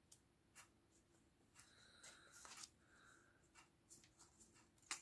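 Faint handling of sheets of patterned scrapbook paper: a few light scattered clicks and taps, with a soft rustle of paper about two seconds in and a sharper click near the end.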